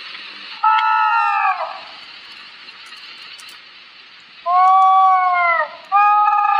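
Baby spinosaurus sound effect: three drawn-out, high, pitched cries, each about a second long and dropping in pitch as it ends, the last running on past the end, over a steady hiss.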